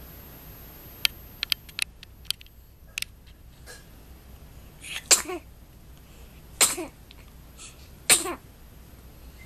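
Three loud sneezes about a second and a half apart, the first the loudest. A few short clicks come before them.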